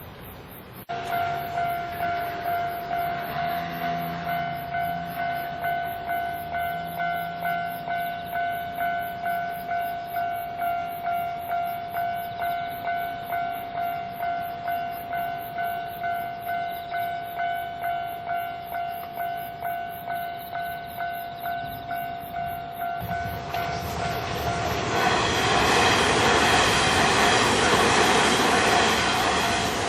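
Japanese level-crossing warning bell on the Kintetsu Nara Line starts about a second in and rings steadily at about two strokes a second. From about 23 seconds a Kintetsu train approaches and passes over the crossing. Its running noise becomes the loudest sound while the bell keeps ringing.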